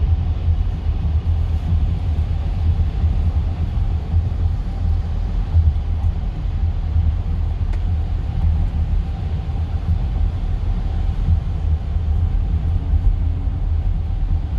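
Steady low rumble of a car's road and engine noise, heard inside the cabin.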